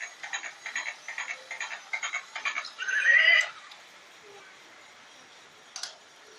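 Electronic sound effect from a toy: a rapid run of pulses, about five a second, ending in a short rising squeal about three seconds in, then it cuts off. One click near the end.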